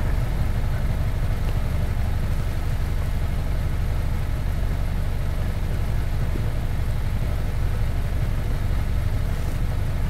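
2018 Honda Accord's 1.5-litre turbocharged four-cylinder engine idling steadily with a low, even pulse. It is running a little rough from a cylinder 4 misfire.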